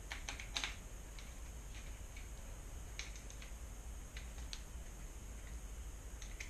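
Scattered small clicks and taps of a bicycle shifter and its cable being worked into place by hand, several close together about half a second in and a few more spread through the rest, over a faint steady hum.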